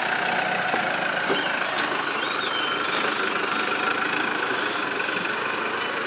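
Diesel engine of farm machinery running steadily, with a steady whine over the engine note.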